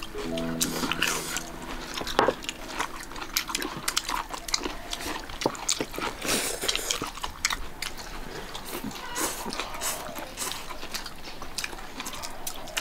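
People eating at a table: chopsticks clicking against porcelain bowls, with chewing and sipping. Held notes of background music fade out about two seconds in.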